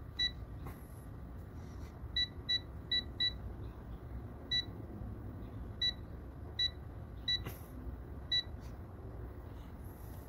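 Touch control panel of a Gourmia GAF838 digital air fryer beeping as its keys are pressed: about ten short, high-pitched beeps, one per key press while the temperature and cooking time are set, four of them in quick succession a couple of seconds in.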